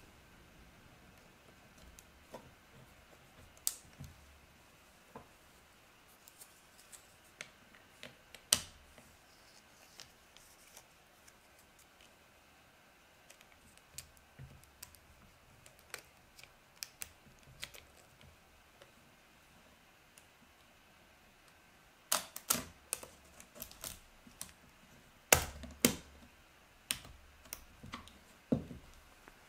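An Olympus OM-10 35mm film SLR being loaded with film: scattered sharp clicks and handling noises from the camera back, film cartridge and film leader. A run of louder clicks comes about three-quarters through, and another near the end.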